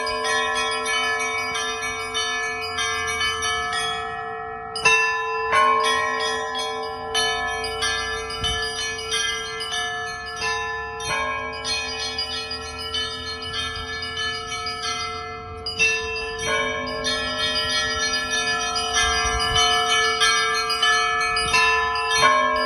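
Russian Orthodox festive church bell ringing: quick, tumbling strikes of small high-pitched bells over middle bells, with a deeper bell coming in about every five to six seconds.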